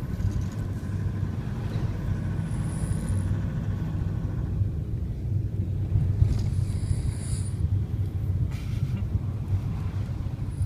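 A person snoring heavily in a vehicle, two snoring breaths about four seconds apart, over the steady low rumble of the van.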